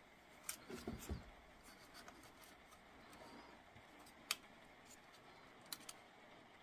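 Faint clicks and taps of fingers bending a thin metal connection tab on a battery circuit board, with a few soft knocks about a second in and one sharper click about four seconds in.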